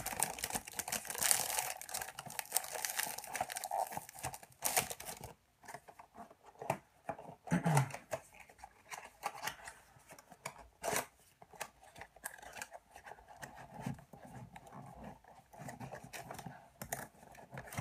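The wrapping of a perfume box is torn open and crinkled for the first four or five seconds. Scattered light clicks and rustles follow as the box is handled and opened.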